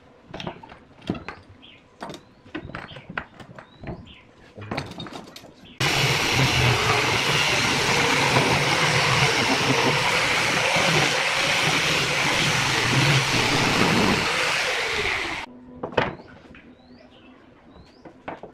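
Handheld angle grinder with a sanding disc sanding curved bent-wood chair strips. It starts abruptly about six seconds in, runs loud and steady for about ten seconds, then cuts off suddenly. Before it come scattered clicks and knocks of metal clamps and wood being handled, and more knocks follow after it.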